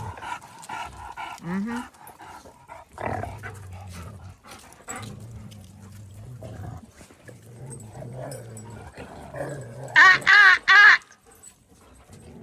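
Dogs in rough play, one growling low through the middle, then three loud barks in quick succession about ten seconds in.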